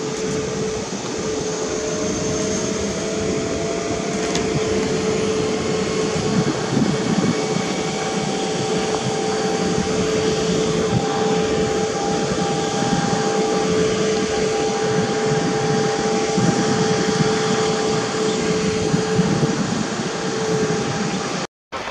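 Airbus A320neo's CFM LEAP-1A turbofan engines running at taxi idle: a steady whine over an even rush of jet noise. The sound cuts out abruptly near the end.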